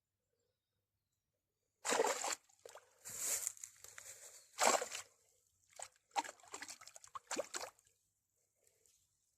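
Water splashing in a series of short bursts, starting about two seconds in, as a small hooked pike thrashes at the surface.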